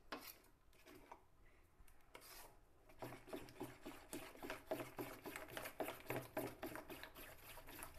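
Thick flour batter for pakoras being beaten in a bowl: quick, rhythmic slapping and scraping strokes of the batter against the bowl, few at first and then several a second from about three seconds in.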